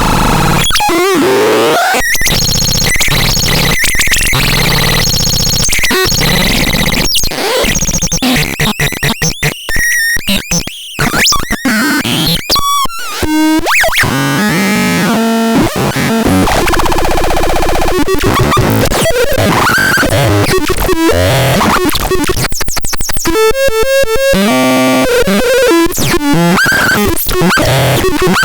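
Loud, chaotic electronic synthesizer noise: harsh tones and hiss shifting constantly, with pitch sweeps, choppy stuttering dropouts partway through and a fast warbling passage near the end.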